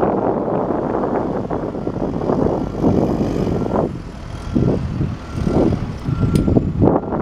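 John Deere 310SJ backhoe loader's diesel engine running loud and surging in level as the machine works, with its reversing alarm beeping faintly at intervals.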